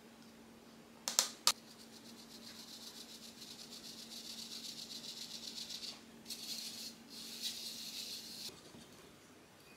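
Cake flour and cocoa powder being shaken through a plastic-rimmed wire-mesh sieve into a glass bowl: two sharp taps about a second in, then a fine, rapid rattling hiss of the sieve being shaken, with two short pauses, stopping near the end.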